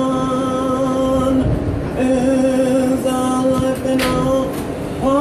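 A lone voice singing long held notes, several in a row with short breaks between them, over the rumble of a subway car.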